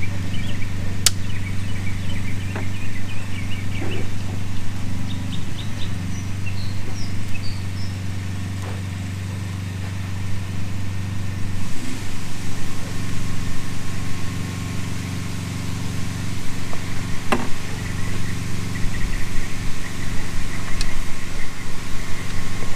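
A steady low mechanical hum runs throughout, shifting slightly about halfway. A few sharp clicks come over it, and faint high chirps sound early on.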